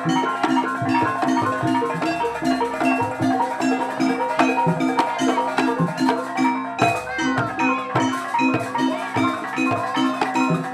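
Jaranan music from a Javanese gamelan-style ensemble: ringing bronze metallophones and gongs over steady drum strokes in a fast, repeating rhythm, with a brief break about seven seconds in.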